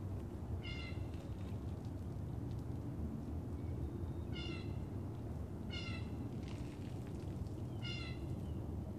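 An animal's short, high-pitched calls, four of them at uneven gaps of one to four seconds, over a steady low background rumble.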